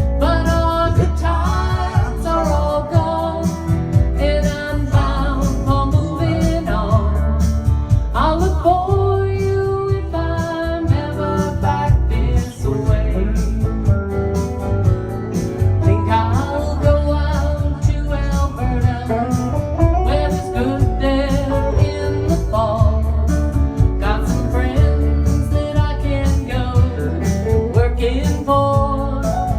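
Country-folk song sung by a voice over guitar accompaniment, played continuously at a steady tempo.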